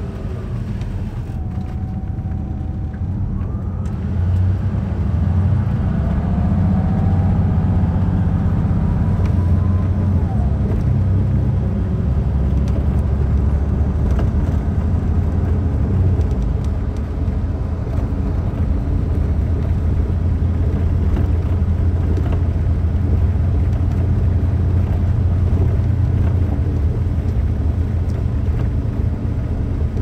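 Steady low road and engine rumble heard from inside a moving vehicle, growing louder about four seconds in.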